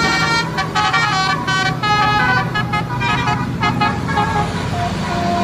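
Bus "telolet basuri" multi-tone musical horn playing a quick tune of short notes that change pitch, over the low hum of the bus engine. The notes run in a fast stepping pattern from about half a second in until nearly four seconds, then ease to a steadier tone near the end.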